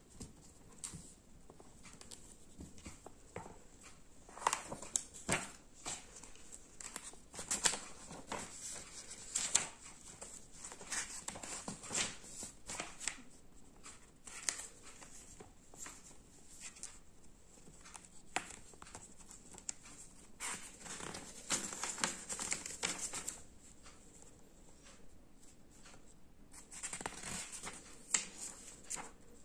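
Paper pages of a softcover book rustling and crinkling as a Persian kitten paws at them and bites them, with scattered small taps and scratches. Longer spells of continuous rustling come about two-thirds of the way through and again near the end.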